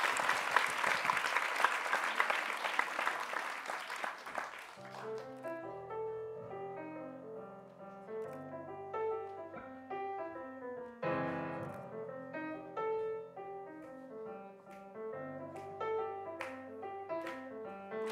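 Audience applause fading out over the first four seconds, then a live swing band's piano starts the tune, playing chords over a low bass line, with a stronger chord about eleven seconds in and a few sharp clicks near the end.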